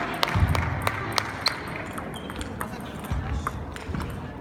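Table tennis balls clicking off paddles and tables, irregular sharp ticks from several tables in play at once, over a murmur of voices in a large hall.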